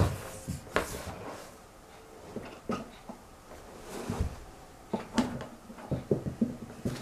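Rubber wellington boots stepping and shuffling on a tiled floor: irregular soft thuds and scuffs of the soles, coming more often in the second half.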